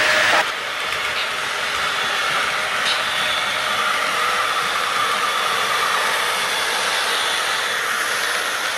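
HO scale model train running past, led by BNSF diesel locomotive models: a steady whir of the locomotive motors and wheels rolling on the rails, with a few faint clicks. A slightly louder whir with a steady tone cuts off about half a second in.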